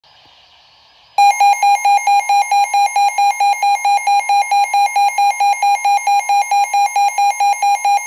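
Midland weather alert radio sounding its alarm: a loud, rapid electronic beeping, about four beeps a second, cutting in about a second in over faint radio hiss. It is the radio's alert for a severe thunderstorm warning.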